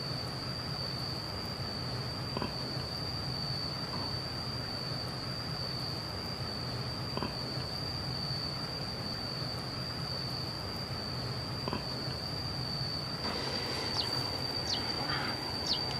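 Insects droning in one steady high-pitched note, with a few short high chirps near the end.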